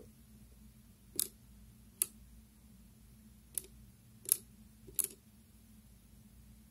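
Soroban (Japanese abacus) beads flicked by a fingertip, clacking against the beam and against one another: five short, sharp clicks spaced unevenly over a few seconds as a subtraction is worked out on the rods.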